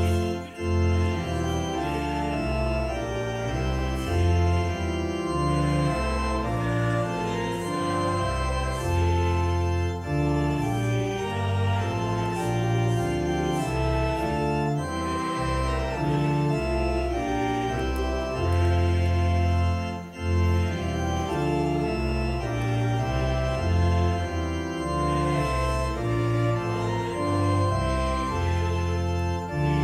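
Church organ playing a hymn in slow, sustained chords with a deep bass line, the chords changing every second or so.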